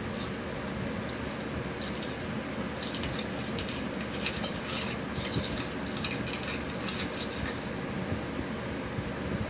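The foil wrapper of a chocolate surprise egg crinkles as fingers peel it off, crackling on and off through the middle of the stretch. A steady background hiss runs underneath.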